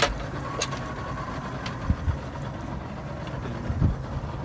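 Boat engine idling with a steady low hum, with two dull low thumps about two seconds apart.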